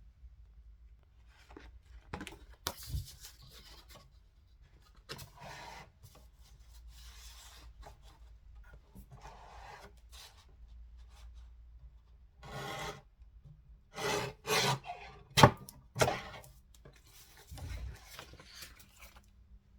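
Irregular rubbing and scraping strokes of craft materials being worked by hand, with a few sharp clicks, loudest in a quick cluster of strokes about two-thirds of the way through.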